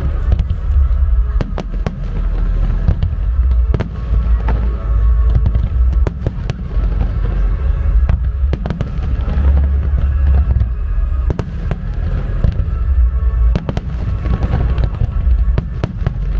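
Aerial fireworks shells bursting in quick succession: many sharp bangs over a continuous deep booming.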